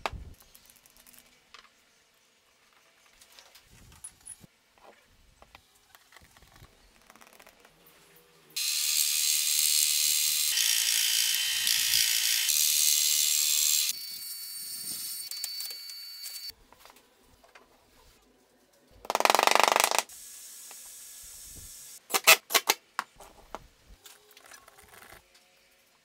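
Woodworking power tools working plywood in short bursts. A loud, high rasping noise runs for about five seconds, then drops to a quieter steady drilling that fits a drill press boring the plywood. A brief loud burst follows, then a few sharp clicks near the end, with light handling knocks in the quiet stretches between.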